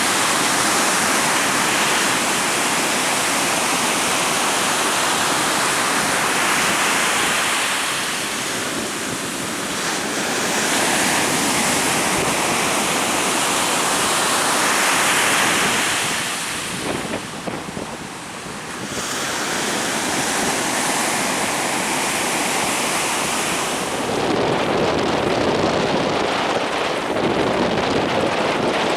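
Heavy surf breaking, with strong wind gusting across the microphone. The noise swells and eases, dropping back briefly twice.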